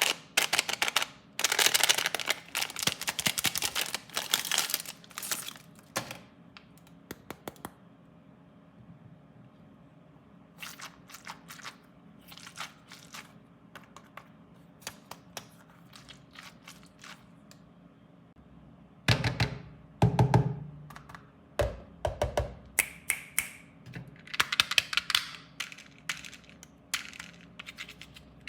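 Hands unwrapping and handling plastic candy and toy packaging: crinkling wrappers and quick clicks and taps on plastic, with a few dull thumps a little past the middle.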